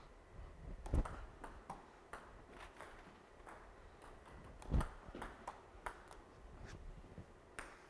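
Table tennis ball clicking off the table and paddles in a serve-and-receive drill, light irregular ticks. Two dull thumps stand out, about a second in and near five seconds in.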